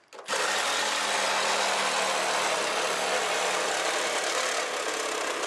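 Cordless Milwaukee reciprocating saw with a bi-metal blade cutting through a thin aluminum catalytic converter shield. It starts a moment in and then runs steadily, the blade working through the sheet metal.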